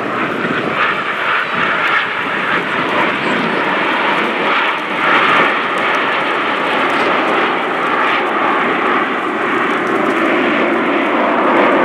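Jet engines of a formation of Aermacchi MB-339 jet trainers flying past overhead: a steady, continuous jet noise with no distinct peaks.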